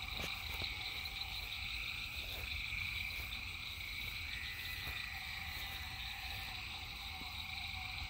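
Night chorus of frogs and insects calling steadily, several overlapping continuous high and mid-pitched trills with no break.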